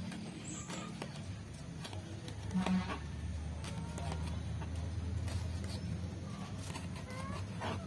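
A kitchen knife slicing a red bell pepper into strips on a plastic cutting board, its blade tapping the board in short, irregular clicks, while chickens cluck nearby, loudest about two and a half seconds in. A steady low hum runs underneath.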